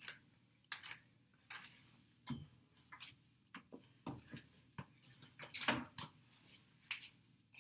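A person climbing onto a plastic toilet seat and up onto a metal grab bar: scattered soft knocks, shoe scuffs and clothing rustles, loudest about two thirds of the way through.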